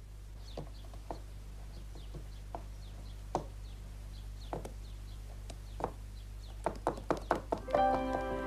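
Farmyard sound effects: scattered single knocks with faint short chirps and clucks of fowl, then a quick run of about eight knocks near the end. Background music comes in just before the end.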